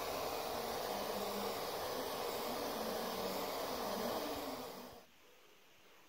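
A steady hiss that drops away about five seconds in.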